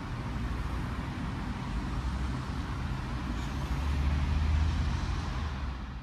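Road vehicle noise: a steady rumble and hiss that swells louder about four to five seconds in.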